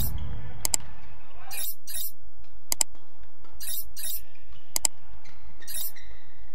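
Badminton rally: three sharp racket strikes on the shuttlecock, about two seconds apart. Between them come short high scuffs of players' shoes on the court mat.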